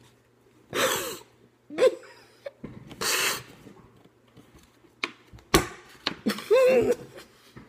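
A man's sharp hissing breaths and short strained vocal sounds, with one sharp knock about five and a half seconds in.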